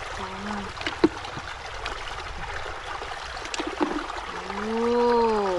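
Water trickling steadily, with a few sharp clicks of snail shells and eggs knocking as they are handled. The loudest click comes about a second in.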